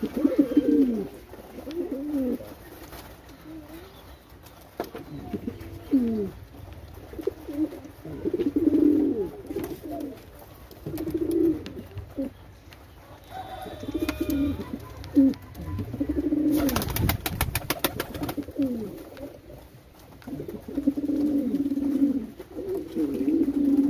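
Pigeons cooing over and over, in short low phrases with brief pauses between them. About two-thirds of the way through, a rapid clatter of taps lasts about two seconds.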